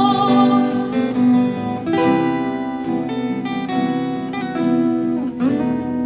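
Instrumental break of a slow Korean ballad backing track, carried by guitar, with no singing.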